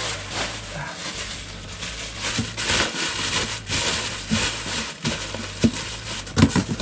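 A large sheet of packing paper being crumpled and pushed into a cardboard shipping box around toys, a continuous crinkling with a few sharper knocks against the box near the end.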